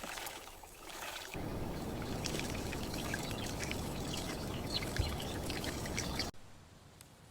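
Wet pouring and sloshing with many small splatters and clicks, which gets fuller about a second in and stops abruptly near the end.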